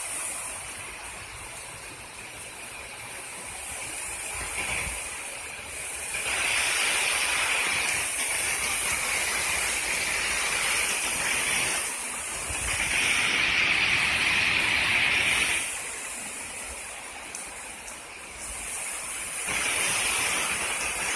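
Mississippi River water rushing over a low dam, a steady hissing rush that swells louder and fades back a few times.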